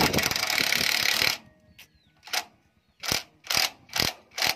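Handheld impact wrench running on a bolt of a công nông tractor engine, in bursts: one long burst of over a second at the start, then several short bursts toward the end.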